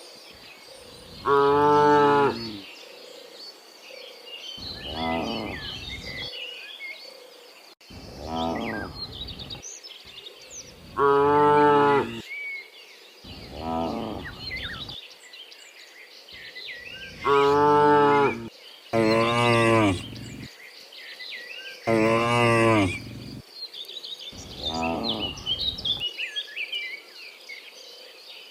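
A herd of cows mooing repeatedly, about ten moos, each lasting roughly a second. Some are loud and close, others fainter, with small birds chirping in the background.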